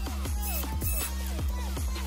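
Background electronic dance music: a steady bass under quick, repeated downward-sliding synth notes, about four a second.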